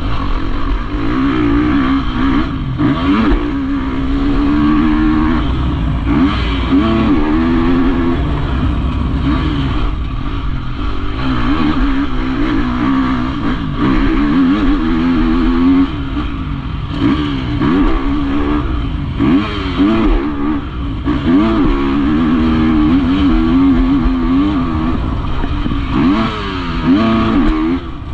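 KTM motocross bike's engine being ridden hard, its pitch climbing and dropping again and again as the throttle is opened and closed.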